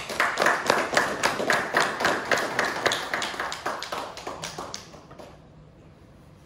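A small group applauding: a few people clapping steadily, which dies away about five seconds in.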